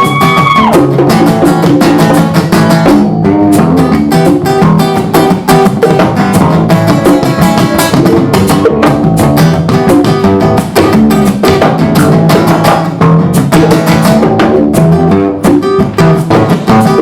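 Acoustic guitar strummed in an upbeat rhythm with hand percussion keeping a steady beat: an instrumental passage of a live acoustic jam-band song. A held high note ends just under a second in.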